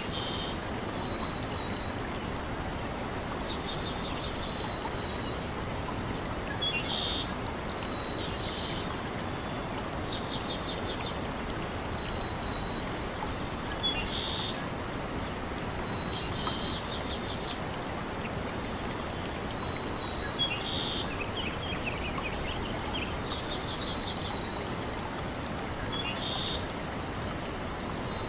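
Nature ambience: a steady rush of running water, with small birds chirping and giving short rapid trills over it every few seconds.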